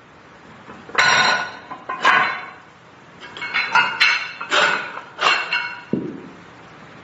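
Hard objects, apparently metal, clinking and clanking together about seven times, each strike ringing briefly; the last, about six seconds in, is a duller knock.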